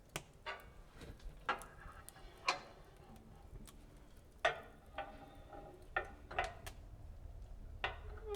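A series of about ten light clicks and clinks at uneven intervals, each ringing briefly, over a faint low background hum.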